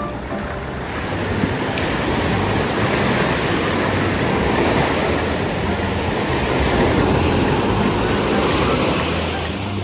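Ocean surf breaking and washing up the beach: a steady rush that grows louder through the middle and eases near the end.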